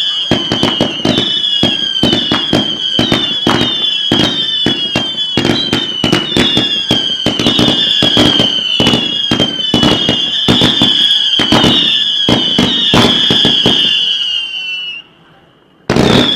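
A rapid volley of fireworks shells launched from mortar tubes at very close range, about two a second, each a sharp launch thump followed by a whistling tail that falls in pitch. The volley stops about fifteen seconds in, and one more whistling launch follows near the end.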